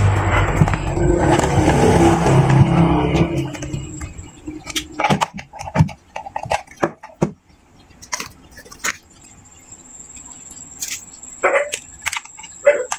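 Scattered small clicks and knocks of a plastic speaker case being handled and screwed shut with a screwdriver. A loud low drone fills the first three to four seconds and then fades out, and a faint steady high whine sets in near the middle.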